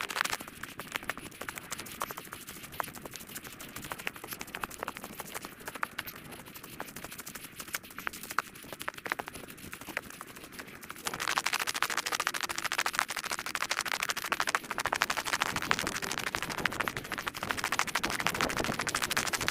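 The trail recording's own sound played back eight times fast: a dense, scratchy crackle of rapid clicks, stepping louder about eleven seconds in.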